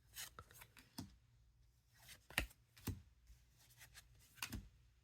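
Faint, irregular clicks and light rustles of Lord of the Rings TCG cards being slid one past another in the hand as a pack is gone through.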